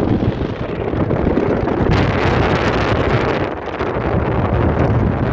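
Wind buffeting the microphone at an open car window while the car drives along, over steady road and tyre noise.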